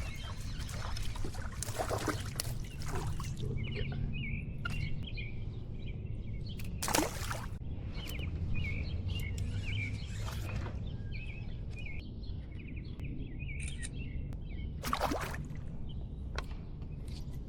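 Birds chirping in a run of short repeated calls, with a few brief water splashes and drips, over a low steady rumble.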